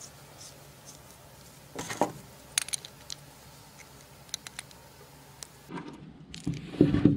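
Small steel parts clinking and clicking as washers and a bearing are handled on a threaded bolt, a few separate clinks, then a louder stretch of clattering handling near the end.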